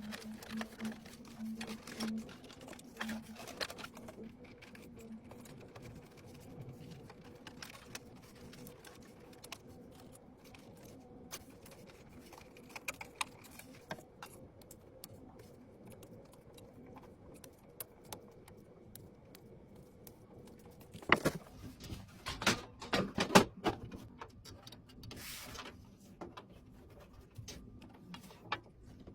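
Scattered light clicks and taps of PC hardware being handled, with a cluster of sharper, louder knocks about three quarters of the way through, over a faint steady hum.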